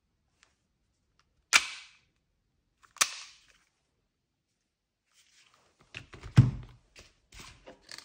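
Tokyo Marui V10 Ultra Compact gas blowback airsoft pistol fired twice, about a second and a half apart, each shot a loud sharp snap with a short trailing hiss. Near the end come a run of handling knocks and thumps.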